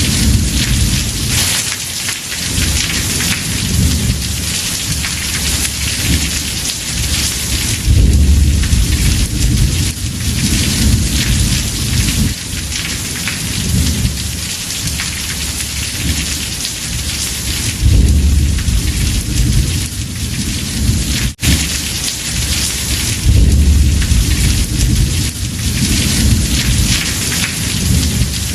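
Heavy rain drumming on a house roof, a dense steady hiss, with rolling thunder rumbling low underneath and swelling up loudly three times. The sound cuts out for a split second about two-thirds of the way through.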